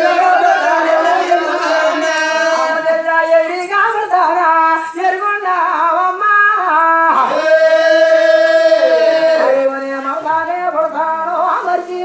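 Several men singing a song together, loud and in unison, with long held notes.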